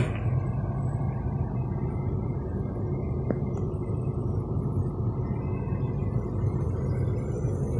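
Steady low rumble of a motor vehicle running, with no change in pitch or level.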